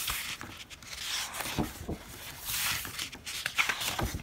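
Sheets of a paper-craft pad rustling and sliding against each other as hands turn to the next page, in several soft swishes with a few light knocks of paper on the tabletop.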